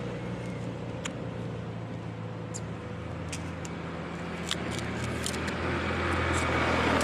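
A motor vehicle's engine running steadily, growing louder near the end as if approaching, with scattered faint clicks over it.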